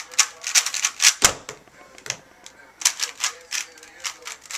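Rapid plastic clicking of an Alpha 2 speedcube being turned, cut off a little over a second in by one heavy thump as the hands slap down on the Stackmat timer to stop the solve. More clicks of cube turns follow in the second half.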